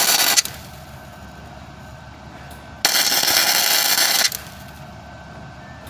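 Flux-core wire welder with .030 flux-core wire, its arc crackling in short bursts as weld is built up on a broken bolt stub. One burst stops about half a second in and another runs about a second and a half around the middle, each starting and stopping sharply.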